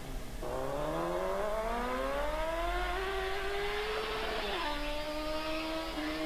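One long, drawn-out human scream, dubbed over footage of a marmot standing on its hind legs. Its pitch climbs slowly, then drops a step a little past halfway and holds.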